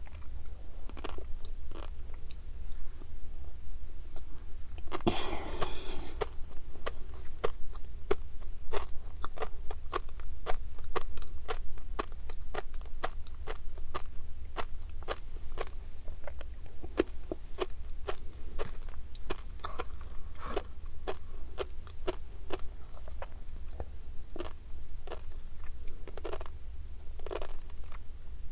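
Close-miked chewing of tobiko (flying fish roe), the tiny eggs popping as a dense run of sharp little clicks. There is a louder, noisier bite about five seconds in, and a steady low hum underneath.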